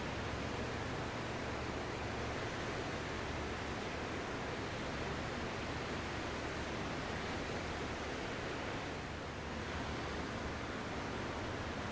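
Ocean surf: a steady, even wash of waves with a slight lull about nine seconds in.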